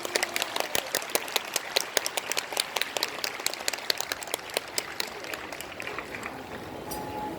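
Audience clapping, a dense patter of hand claps that thins out and dies away near the end.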